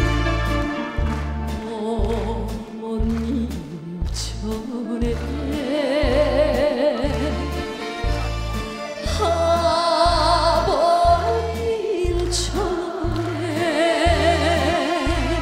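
A woman singing a Korean trot song with heavy vibrato, backed by a live band over a steady bass beat.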